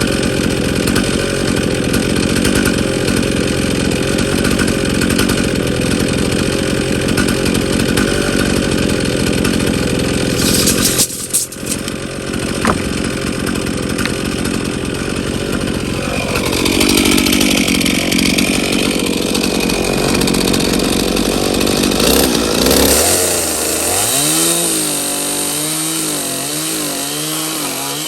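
Gasoline chainsaw running hard while cutting 2x6 lumber, its sound briefly broken about eleven seconds in. Near the end the engine drops to lower revs and its speed wavers up and down before it stops.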